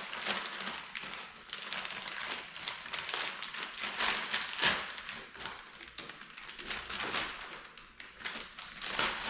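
Irregular rustling and crackling with small taps, as packaging is handled and heavy steel mounting brackets are shifted about in their box.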